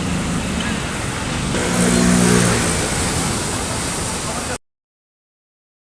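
Sea waves washing and surging against the shore, a loud, steady rushing noise, with a low pitched drone swelling briefly about two seconds in. The sound cuts off abruptly a little over four and a half seconds in.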